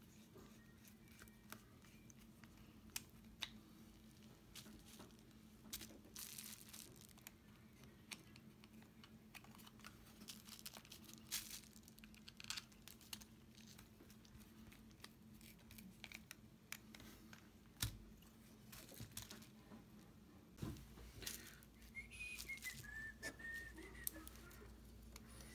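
Faint clicks, taps and scraping of small plastic parts and a screwdriver as a Tamiya RC truck axle is fitted back in place, over a steady low hum. Near the end a wavering whistle comes in.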